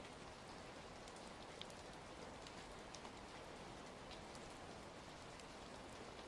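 Steady, soft rain falling, with scattered small crackles and pops from a fireplace fire.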